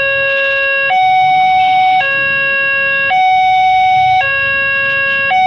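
Railway level-crossing warning alarm sounding from the crossing's loudspeaker: an electronic two-tone signal that alternates between a lower and a higher tone, switching about once a second, warning that a train is approaching.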